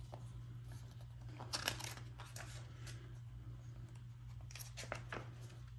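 Paper rustling as the pages of a glossy DVD-set booklet are handled and turned, in two short bursts, one a second or two in and another near the end, over a steady low hum.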